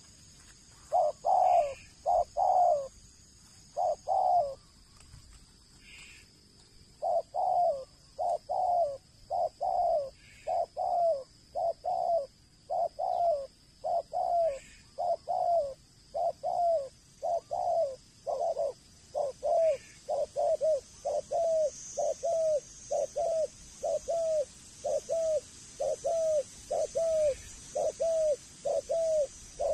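Spotted dove cooing: short, dipping coo notes repeated in a series. A few notes come at first, then after a pause of about three seconds a steady run of about two notes a second.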